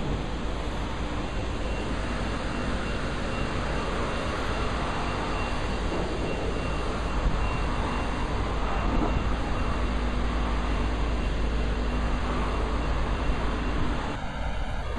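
Steady rumble of distant city traffic, an even noise with no single event standing out; it dips briefly near the end.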